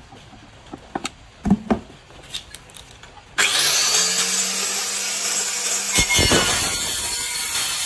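A few scattered clicks and knocks, then about three and a half seconds in the Yamasu YMS-110R 110 mm handheld tile cutter starts abruptly and its blade grinds steadily through a tile, with a knock a couple of seconds into the cut.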